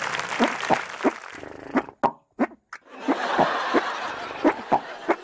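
Body-percussion beatbox: a string of short hollow pops, about two or three a second in a loose beat, made by hand on the body instead of with the mouth.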